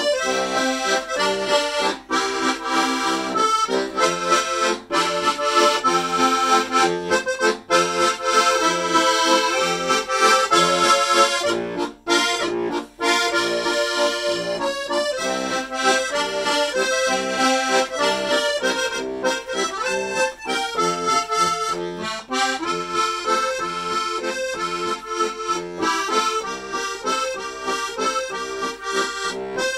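Rutar piano accordion playing a waltz tune. Chords and melody run steadily, with two very short breaks about twelve seconds in.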